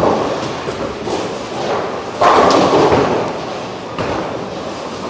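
Bowling alley noise: a steady rumble of balls rolling, with a heavy thud about two seconds in from a ball or pins striking, and a lighter knock near the end.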